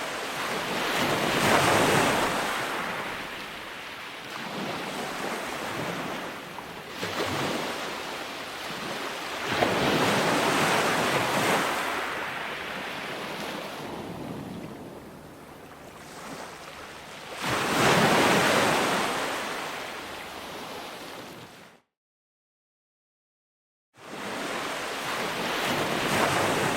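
Ocean waves breaking and washing up, each surge swelling and fading over several seconds, with wind noise on the microphone. The sound drops out completely for about two seconds near the end, then comes back with another wave.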